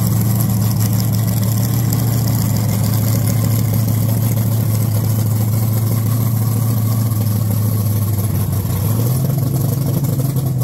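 Race car engine idling loudly and steadily, its pitch stepping up slightly near the end.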